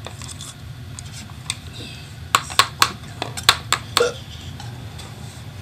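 A utensil clicking against a nonstick frying pan as pan-fried instant noodles are lifted and turned: several sharp clicks in quick succession from about two to four seconds in, over a steady low hum.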